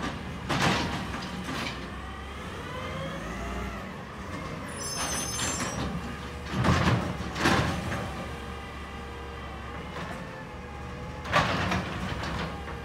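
Garbage truck at work: its engine runs steadily, with a wavering whine for a couple of seconds and four loud sudden noises, two of them close together about halfway through.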